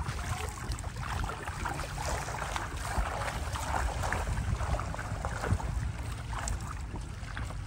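A giant inflatable water-walking ball rolling and splashing through shallow seawater on wet sand, with scattered small splashes and a low wind rumble on the microphone.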